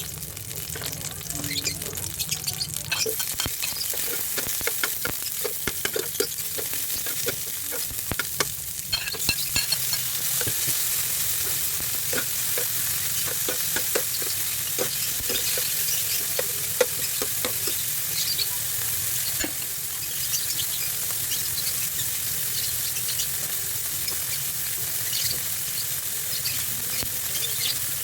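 Sliced bitter melon sautéing in oil in a pan: a steady sizzle, with frequent clicks and scrapes of a utensil stirring against the pan. The sizzle grows louder about nine seconds in, and the stirring thins out in the later part.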